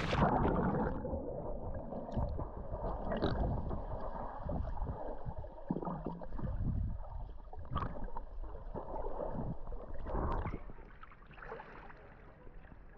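Sea water sloshing and gurgling around a GoPro Hero11 action camera as a swimmer moves through the water. It sounds muffled, with the high end cut off from about a second in, as though the camera is under water. It grows quieter near the end.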